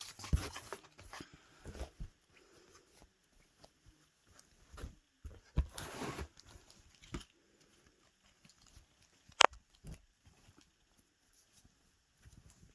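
Intermittent rustling and handling of packaging while items are taken out of a gift box, with a longer rustle about six seconds in and a single sharp click about nine seconds in.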